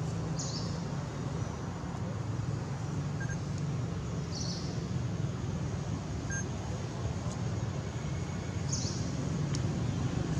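Steady outdoor background noise with a low hum, and a short high-pitched chirp repeating about every four seconds.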